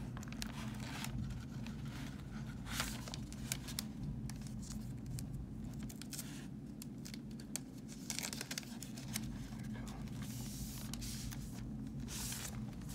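A black plastic mystery bag being torn and crinkled by hand as a comic book that is stuck inside is worked out of it, in irregular rustles and tearing strokes. A steady low hum runs underneath.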